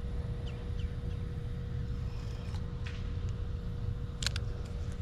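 Low rumbling outdoor background noise with a faint steady hum, and one sharp click a little after four seconds in.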